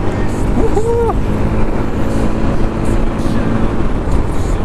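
Motorcycle engine running steadily while under way, with road and wind noise. A short pitched sound rises and falls about a second in.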